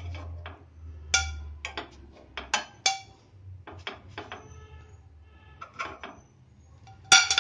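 A metal spoon clinking and scraping against a non-stick appam pan and a ceramic plate as cooked pakodas are lifted out one by one. It is a series of sharp clinks, the loudest near the end.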